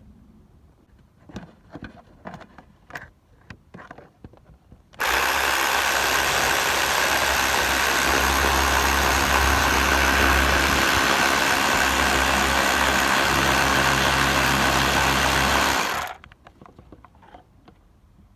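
A few light clicks, then a 2010 Ford Focus 1.6 diesel engine running at a steady idle; the sound starts abruptly about five seconds in and cuts off abruptly about eleven seconds later.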